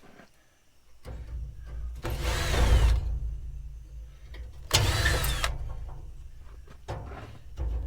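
Power drill running with an 8mm driver, backing out fasteners in two main bursts about two and five seconds in, its motor whine rising and falling with the trigger, then a few shorter bursts near the end.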